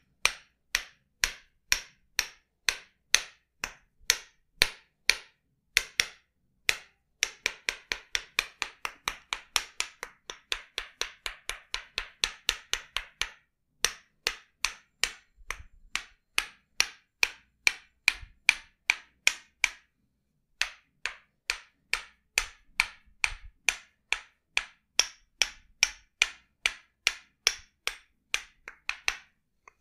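Tok sen massage: a wooden mallet tapping a wooden wedge against the body in a long run of sharp, even knocks, about two a second, quickening to about three a second for several seconds, with two short pauses.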